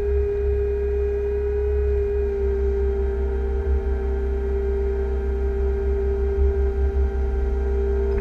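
Liebherr 311 wheeled excavator's engine and hydraulics running under load, heard inside the cab as the boom holds and tips a bucket of spoil over a truck: a steady high whine over a low rumble.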